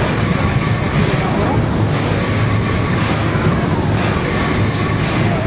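Paddle steamer under way: the steam engine and paddle wheels churn in a steady rhythm of about one beat a second over a constant low hum.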